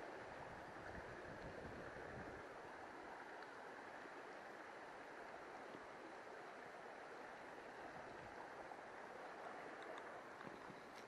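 Faint, steady rush of a shallow river running over rocks.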